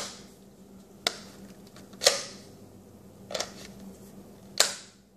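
Spartan Blades Horkos knife snapped in and out of a custom-moulded Kydex sheath: about five sharp clicks, roughly a second apart, as the sheath's retention catches the knife. It is the smooth retention click of a well-fitted sheath.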